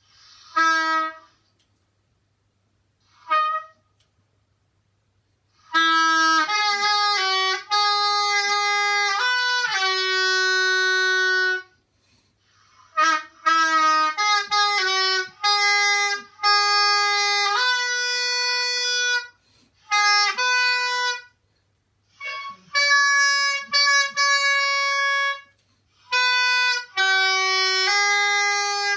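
Solo oboe playing a slow melody in phrases of held notes with short pauses between them, a few short notes first. Its tone is bright and buzzy, which the player likens to an alarm, even after reducing embouchure pressure and reed soaking time.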